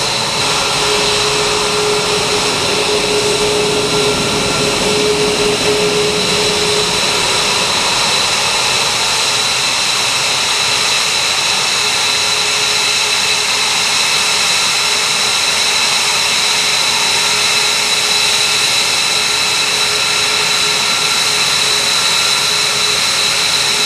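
Lockheed Martin F-22 Raptor's twin Pratt & Whitney F119 turbofans idling: a loud, steady jet whine with a high, piercing tone on top, and a lower hum that fades out about seven seconds in.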